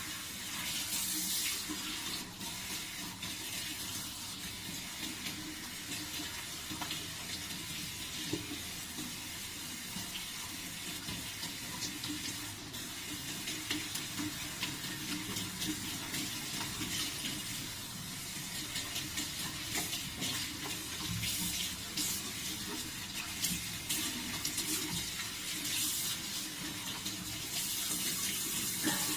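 Water running steadily from a tap and splashing.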